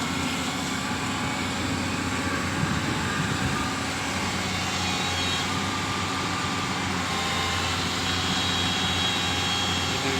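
Amphibious excavator's diesel engine running steadily, a constant drone with a faint whine above it.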